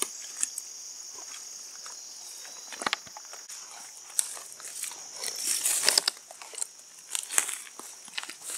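Footsteps crunching and crackling through dry leaf litter and twigs on a wooded slope, in irregular steps. Under them runs a steady high insect drone.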